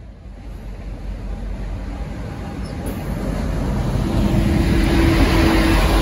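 V/Line N class diesel-electric locomotive N460 rolling into the platform, its engine and running gear growing steadily louder as it draws level. A steady hum joins in about four seconds in.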